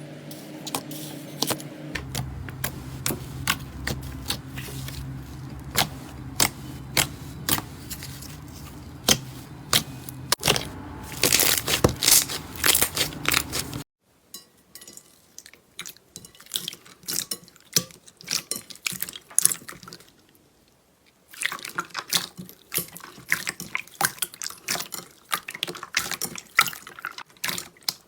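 Wet, sticky slime being squeezed and poked by hand: many short clicks and pops. In the first half these sit over a steady low hum that stops suddenly about halfway through. After that the clicks are sparser, then thicker again near the end.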